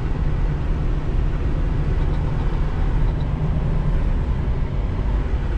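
2021 Freightliner Cascadia semi truck driving, its diesel engine and road noise making a steady low drone as heard from inside the cab.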